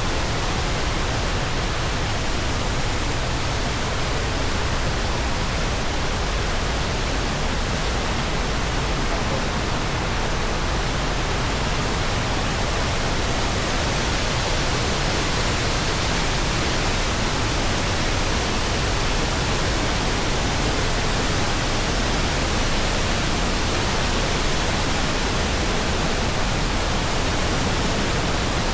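Sgwd yr Eira waterfall on the Afon Hepste, its falling water making a loud, steady rushing noise.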